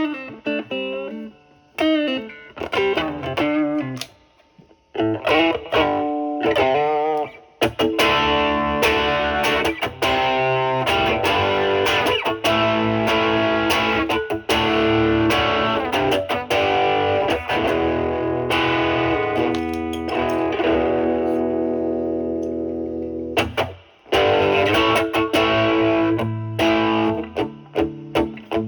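Stratocaster with three single-coil pickups played through an MXR Duke of Tone overdrive pedal into a Marshall Valvestate amp's drive channel, giving an overdriven tone. It opens with picked single-note phrases, moves to long sustained chords about eight seconds in, breaks off briefly, then returns to picked phrases near the end.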